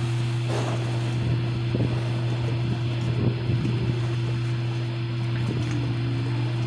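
Steady low drone of a fishing boat's engine running at an even speed.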